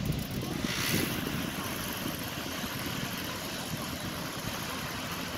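Surf breaking on the beach, a steady rush with a brief louder wash about a second in, mixed with wind buffeting the microphone.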